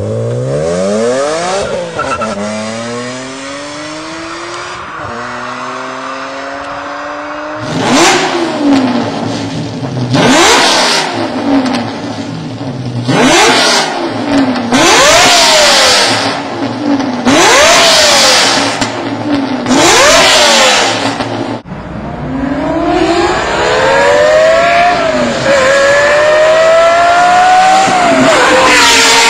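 Performance car engine and exhaust under hard acceleration, the pitch climbing and dropping back at each upshift, with several quick shifts in a row. About two-thirds of the way through it cuts to another car accelerating hard through the gears.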